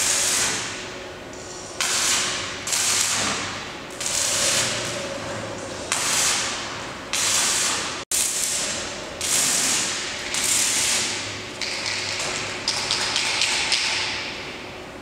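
Electric arc welding in short repeated bursts, about one a second, each a sudden crackling hiss that fades as the arc stops: stitch-welding on the steel frame of a roller shutter door.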